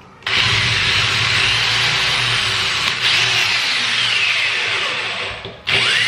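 Corded Black+Decker electric drill running steadily as it bores a hole in a cabinet door. About five and a half seconds in it winds down and stops for a moment, then starts again.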